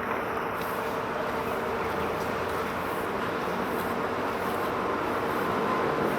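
Steady drone of vehicle traffic with a faint hum, growing slightly louder near the end.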